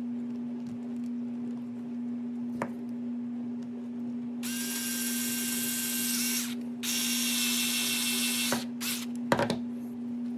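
Power screwdriver whirring in two runs of about two seconds each, driving screws into the RC buggy's parts, with a few small clicks near the end.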